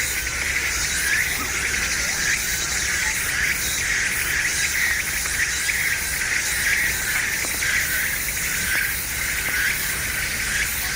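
Dense chorus of insects chirring without a break, swelling and fading about once or twice a second.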